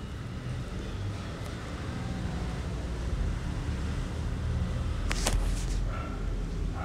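Steady low rumble of a gas stove burner under a pan of simmering gravy, with one brief sharp noise about five seconds in.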